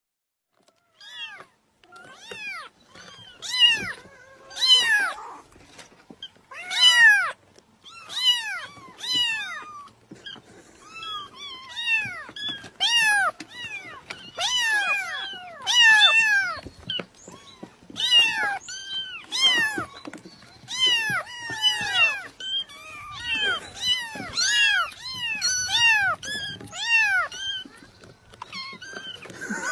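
A cat meowing over and over: short, high meows that rise and fall in pitch, often two or three in quick succession, with brief pauses between runs.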